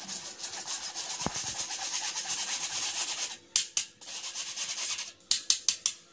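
Wire whisk scraping flour through a mesh sieve in quick, even strokes, a rasping rub. After about three seconds the rubbing stops and a few sharp taps follow.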